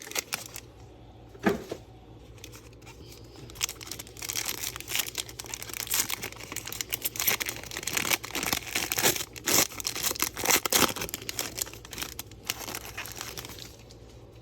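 Packs of trading cards from a 2022 Chronicles baseball box being torn open, their wrappers crinkling. There are a few rips at first, then a dense run of quick crackles and tears from about four seconds in until just before the end.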